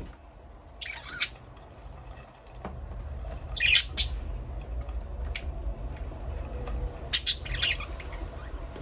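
Budgerigars chirping and squawking in short, high-pitched bursts: a call about a second in, a louder cluster near four seconds and another just after seven. A low steady rumble runs underneath from about two and a half seconds in.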